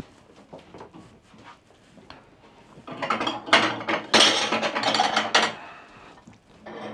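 Kitchen crockery rattling and clattering as a small plate is fetched: faint clicks at first, then a dense rattling clatter from about three seconds in that lasts a couple of seconds.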